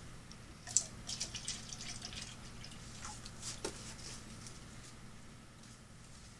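Water dripping and spattering as pepper plants are watered, a quick run of small splashes in the first few seconds that thins out to scattered drips, over a steady low hum.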